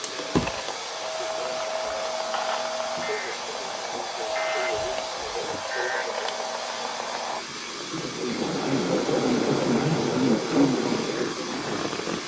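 Radio static: a steady hiss with a steady hum-like tone that comes and goes and three short high beeps. About seven and a half seconds in, the tone stops and muffled, garbled speech sounds under the hiss.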